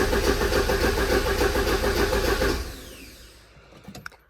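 Starter motor cranking a 1985 Porsche 944's 2.5-litre four-cylinder engine in an even, rapid pulse without it firing, for a no-start fault; the cranking stops about two and a half seconds in and the sound dies away.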